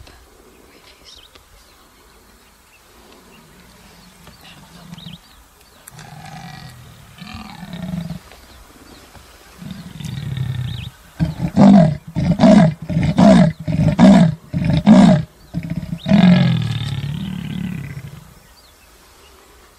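Big cat growling low, then six loud roaring grunts in quick succession, followed by one long snarl.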